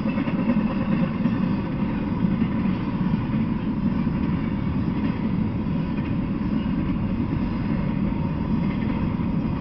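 Freight train of empty intermodal well cars rolling past: a steady rumble of steel wheels on the rails.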